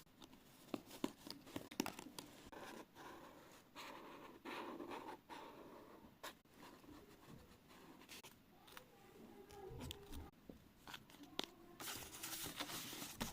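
Quiet handling of paper and craft materials: scattered light taps and soft rustles.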